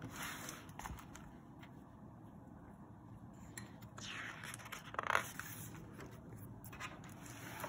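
Pages of a hardcover picture book being turned by hand: soft paper swishes and scrapes, the loudest about five seconds in.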